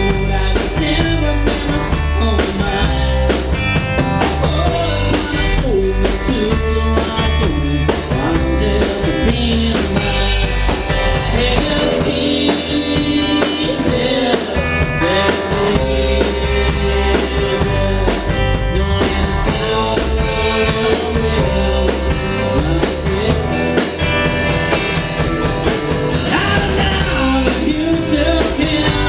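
Rock music with a steady drum-kit beat and singing, playing without a break.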